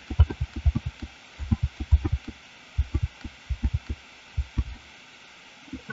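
Computer keyboard keys tapped over and over in quick, uneven runs of short, dull clicks: the Ctrl+Z undo shortcut pressed repeatedly. The tapping stops about five seconds in.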